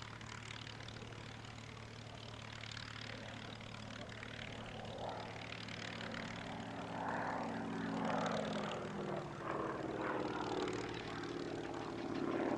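Nanchang CJ-6's radial engine and propeller as the aircraft flies past, growing louder over the second half with the pitch falling as it passes.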